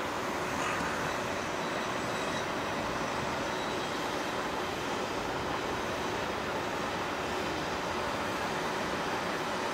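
Siemens Avento tram-train pulling away from a stop and rolling slowly forward, a steady electric running noise mixed with street traffic.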